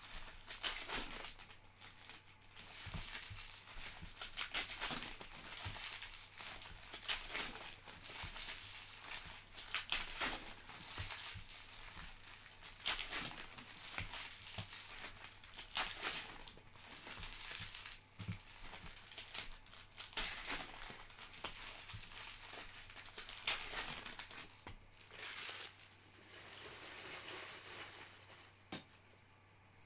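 Panini Prizm trading card packs being opened by hand: wrappers crinkling and tearing in a dense run of short rustles and clicks that thin out near the end. A faint steady low hum sits underneath.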